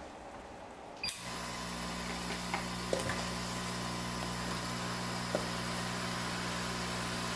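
A small electric fan motor on the workbench switches on about a second in and runs steadily with a hum and a hiss, with a few faint ticks of tools on the board.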